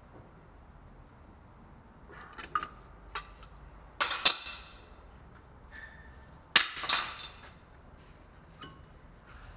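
Metal brake parts and tools clinking as they are handled: a few light ticks, then two sharp clattering clinks, about four and six and a half seconds in, each with a brief rattle after it.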